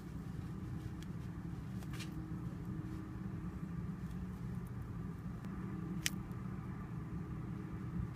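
Steady low background hum, with a faint tap about two seconds in and a short sharp click about six seconds in.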